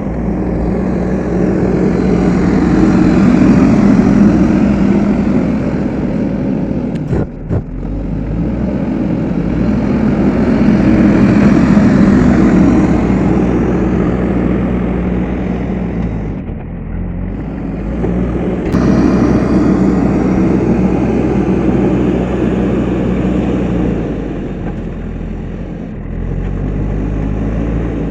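Diesel engine of a JCB 3DX backhoe loader running under working load, rising and easing several times as the machine digs and pushes.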